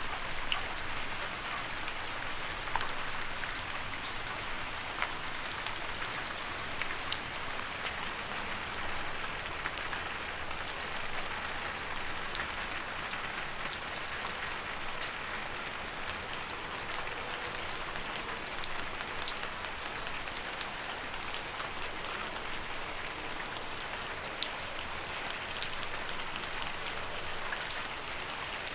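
Steady rainfall, an even patter with many small, separate drop ticks throughout.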